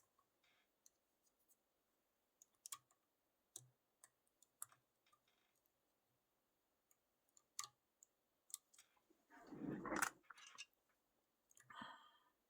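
Faint, scattered clicks and light scrapes of lock picks working the pins of a six-pin Clark-Anxter Platinum lock cylinder, with a longer, louder rustle about ten seconds in and a shorter one near the end.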